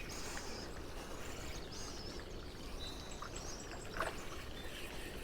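Faint, steady wash of creek water running, with a short high chirp about three seconds in and a soft tick about a second later.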